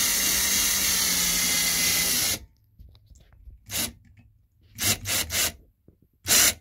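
Power drill driving a screw through a metal closet track into the wall: a steady motor whine that cuts off abruptly about two and a half seconds in. A few short bursts follow as the screw is snugged down, the last and loudest near the end.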